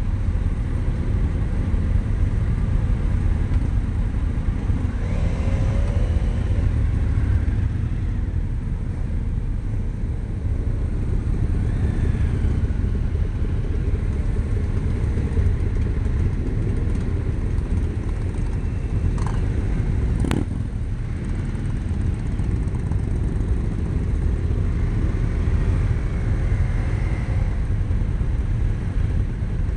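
Motorcycle engines running in a slow-moving pack of bikes, picked up by a helmet-mounted camera as a steady heavy low rumble. A single sharp click comes about two-thirds of the way through.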